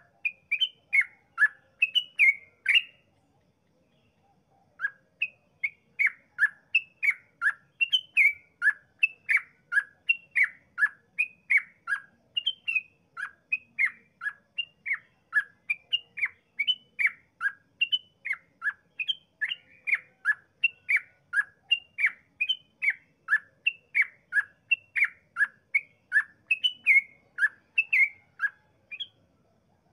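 Yellow-vented bulbul (trucukan) singing a long, rapid run of short falling notes, two or three a second, broken by a brief pause about three seconds in: the sustained repeated 'ropel' song of a bird in full voice.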